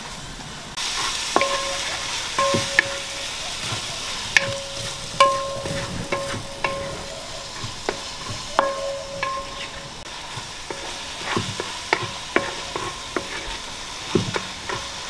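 Sliced onions with green chillies and ginger-garlic paste sizzling in oil in a large steel pan over a wood fire, being sautéed until brown for a curry masala. A spatula stirs and scrapes the pan, knocking it at irregular intervals so that the metal rings briefly after many of the knocks; the sizzle gets louder about a second in.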